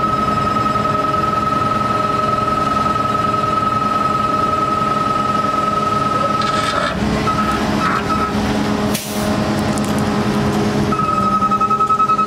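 Hydraulic outrigger motion alarm on an Altec AA755 bucket truck, a rapid high-pitched beeping, sounding over the truck's engine running the hydraulics as the outriggers are lowered. The beeping breaks up about seven seconds in and stops. There is a short sharp clatter around nine seconds, and the beeping starts again near the end.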